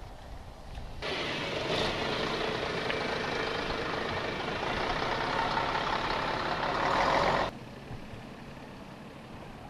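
City bus engine running as the bus pulls away, with a loud rushing noise that starts abruptly about a second in and cuts off sharply about a second and a half before the end.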